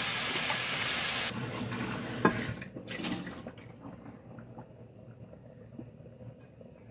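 Raw chicken pieces sizzling in a hot frying pan, the hiss fading out over the first two seconds or so. There is a sharp knock about two seconds in, then a few light clicks of kitchenware on the countertop.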